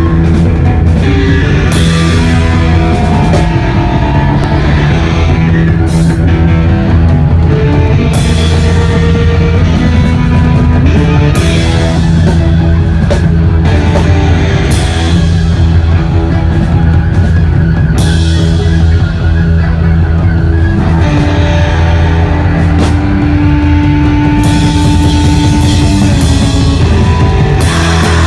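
Rock band playing live and loud: electric guitar over bass and drums, with repeated cymbal crashes.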